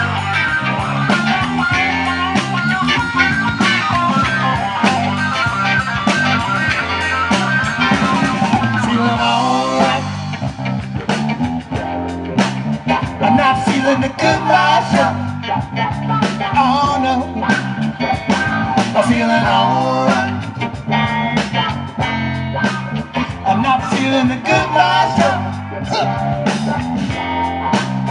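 Rock band playing an instrumental passage: guitar lines over bass and a steady drum beat.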